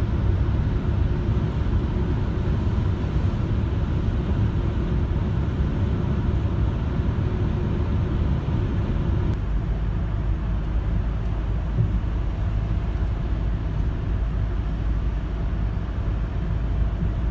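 Steady low rumble of a vehicle on the move, engine and road noise, shifting slightly about halfway through.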